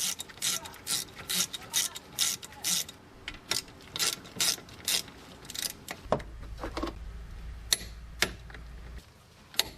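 Ratchet wrench clicking in short strokes as the front brake caliper pin bolts are run down and tightened, about two or three clicks a second, then a few single clicks near the end. A low hum comes in from about six to nine seconds in.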